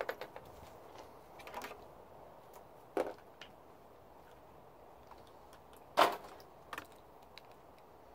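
Scattered knocks and clicks of tools and small parts being handled during wiring work. The loudest is a single sharp knock about six seconds in.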